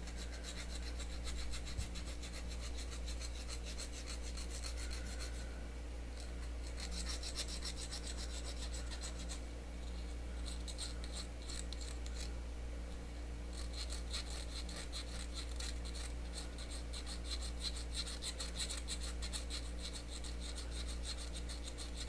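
Needle file rasping back and forth across the glued seam of a metal can wheel, in quick, repeated scraping strokes, with a few short pauses between runs.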